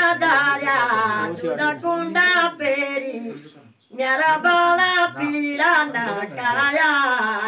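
Women singing a melody with long held notes, breaking off briefly about three and a half seconds in and then starting again.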